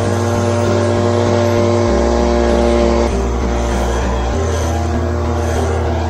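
Leaf blower running steadily at full throttle.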